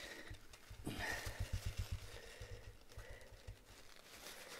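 Handling sounds as a paint dropper bottle's cap is worked open through a sheet of paper: light paper rustle, small clicks and a rapid, irregular run of soft low thumps.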